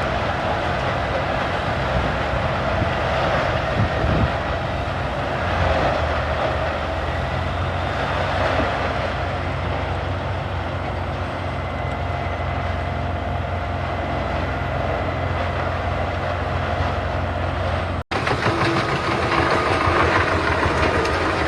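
Industrial horizontal wood grinder running steadily under load, a loud continuous mechanical din with a constant low hum. About eighteen seconds in the sound cuts out for an instant, then similar heavy machine noise carries on.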